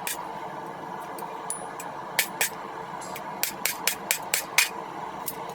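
Hand hammer striking the hot steel of a railroad spike on an anvil, sharp ringing blows: a pair, then a quick run of about six, then one more, over a steady background noise.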